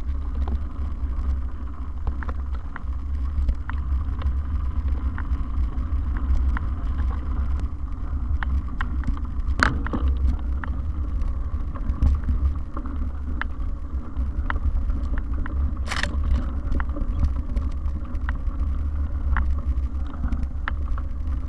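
Mountain bike riding over a dirt trail, heard from a camera on the bike: a steady low rumble with frequent small clicks and rattles, and two louder knocks, about ten seconds in and near sixteen seconds.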